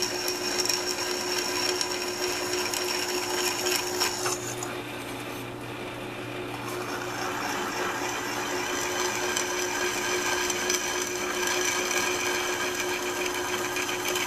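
Drill press running steadily, its greased twist bit cutting potentiometer-size holes through an aluminum enclosure. The high cutting sound drops away a little under 5 s in, while the motor keeps running, and starts again about 7 s in on the next hole.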